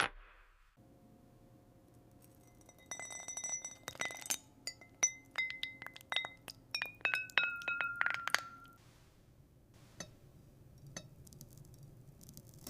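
Glass clinking and tapping: after a quiet start, a quick run of small glass strikes, each leaving a clear ringing tone. It thins out to a few single clicks near the end.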